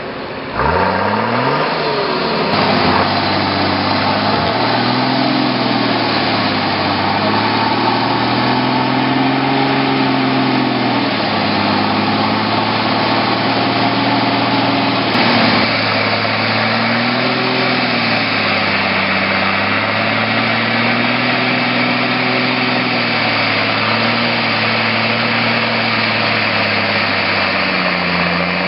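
Off-road buggy engine revving up and down in slow, repeated swells as the vehicle strains through deep mud, with a constant rushing noise underneath.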